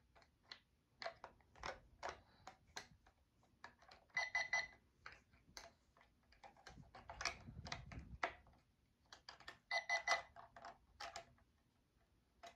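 A talking alarm clock being set: its buttons click under repeated presses, and it gives two short bursts of rapid beeps, about four seconds in and again about ten seconds in.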